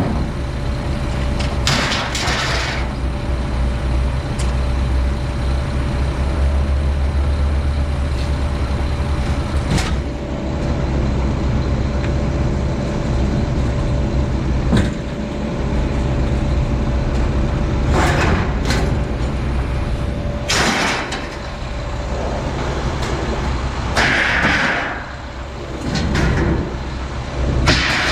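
A motor vehicle's engine running steadily with a low hum, broken several times by short rushing hisses.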